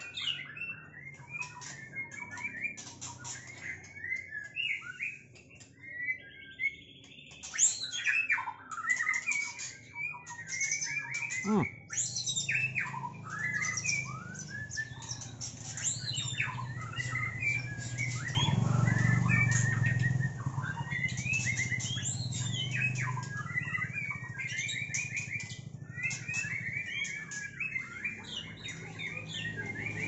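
Caged murai batu (white-rumped shamas) singing, a dense run of whistled phrases, rapid chirps and harsh squawks from several birds at once. About two-thirds of the way through, a low hum swells under the song for a few seconds and is the loudest part.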